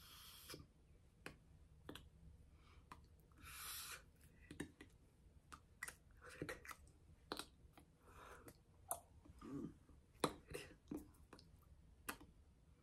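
Faint, irregular soft clicks and taps from a person's hands and mouth while signing in sign language, with two short breathy hisses, one at the start and one about three and a half seconds in.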